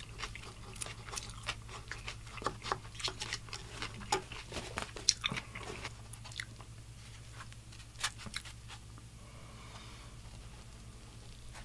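Close-miked food-handling sounds: a plastic fork clicking and scraping in a paper cup, then hands handling a fried chicken sandwich, its bun and pickles. Many small wet clicks and taps, thinning out after about six seconds, over a steady low hum.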